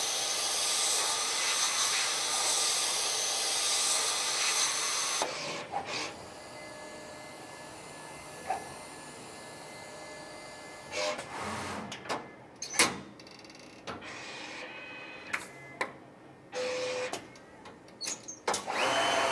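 Zund cutter's 1 kW router module going through its change to manual router mode: a loud hiss for about five seconds, then a quieter steady hum from the machine with the head moving, broken by clicks and knocks and a short steady tone near the end.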